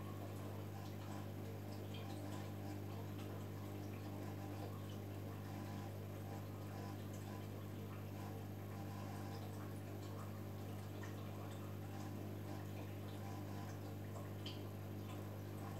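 Aquarium filtration running: a steady low hum with faint trickling water and scattered small drips.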